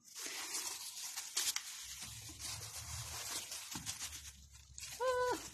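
Rustling and tearing of white packaging as a parcel is unwrapped by hand. Near the end comes a short hummed "mm" from a voice.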